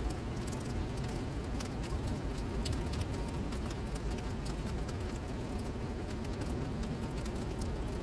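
Rain falling into a puddle on a paved surface: a steady wash of rain with many sharp ticks of single drops scattered through it.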